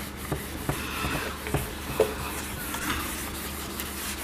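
Whiteboard eraser wiping marker off a whiteboard in repeated rubbing strokes, with a few light knocks.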